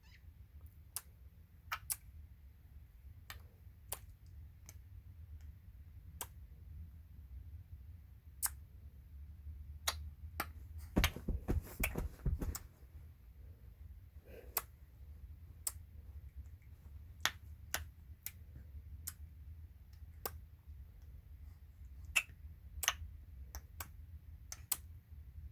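Baby's tongue smacking: sharp, separate clicks, about one a second at an uneven pace, with a denser flurry of clicks and noise about halfway through.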